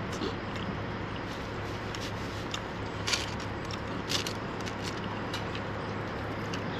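A person eating a chicken gyro: a few soft crackles and clicks of chewing and handling the food, over a steady low hum.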